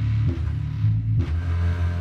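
Music played loud through a KEF PSW2000 powered subwoofer, mostly deep bass notes changing in a rhythm with little treble. The subwoofer is working again after its failed rail capacitors and op-amp were replaced and no longer makes its grunting noise.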